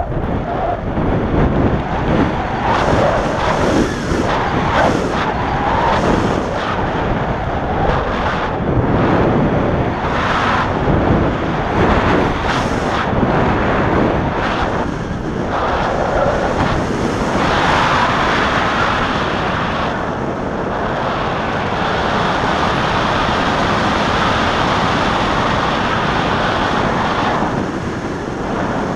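Wind rushing over the microphone of a body-mounted camera on a speedflying pilot in fast flight, a loud steady rush that swells and eases every few seconds.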